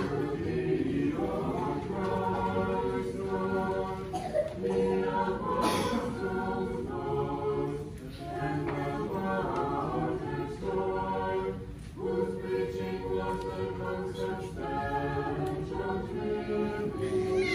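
Church choir singing an Orthodox liturgical hymn a cappella, in sustained chordal phrases with short breaks between them. A short sharp click comes about six seconds in.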